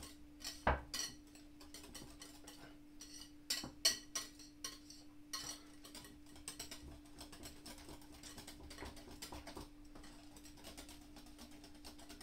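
Wire balloon whisk beating a thick cream mixture in a glass bowl, its wires clicking and tapping against the glass. The strokes are sharper and more spaced in the first half, then turn into quicker, fainter ticking.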